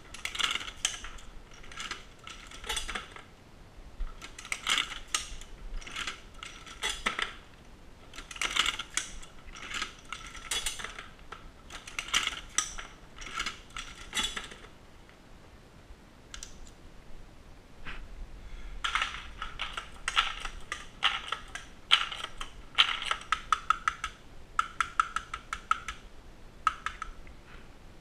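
Dillon SL900 shotshell reloading press being cycled: clusters of metallic clicks and clanks about every one and a half to two seconds, a short lull about halfway, then a faster run of ringing clicks.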